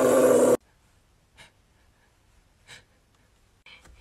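A woman's voice holding one steady sung note, cut off about half a second in, then near silence broken by three faint short sounds.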